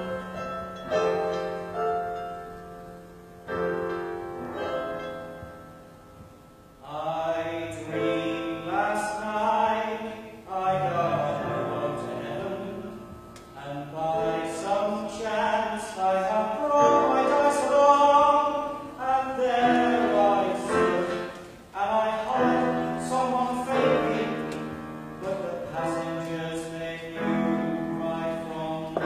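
Choir singing with piano accompaniment. It is softer at first and grows fuller from about seven seconds in.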